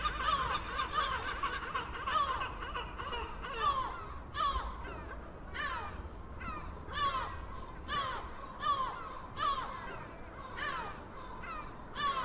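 Seagulls calling: a continuous run of short, harsh calls that each dip in pitch. Several birds overlap for the first few seconds, then the calls come singly, about one or two a second.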